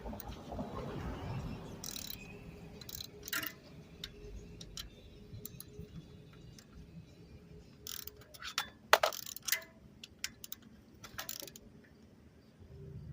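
Scattered metallic clicks and knocks of hand work on a bicycle, with some ratchet-like ticking; the loudest knocks come about nine seconds in.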